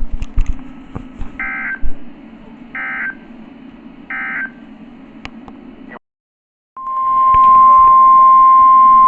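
NOAA Weather Radio emergency alert: three short screeching SAME header data bursts about 1.3 s apart over faint radio hiss, then a brief dead silence, then the loud steady 1050 Hz warning alarm tone starting about seven seconds in. This is the alert header and alarm that precede a tornado warning broadcast.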